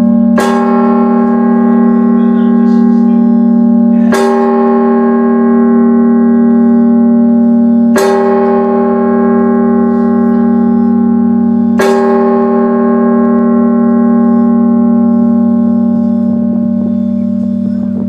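A large bronze tower bell in the Belfort of Brugge struck four times, about four seconds apart. Each stroke rings on until the next, over a steady deep hum.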